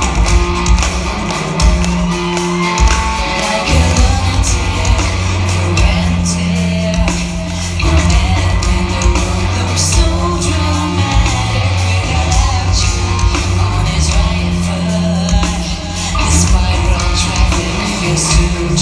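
Heavy metal band playing live in a large hall: loud distorted guitars and heavy bass over pounding drums, with a singer's vocals on top.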